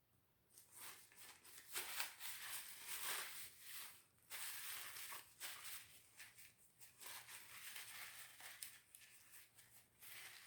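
Faint crackly, crinkly eating noises in uneven bursts as the last bite of a deli meal is chewed close to the microphone.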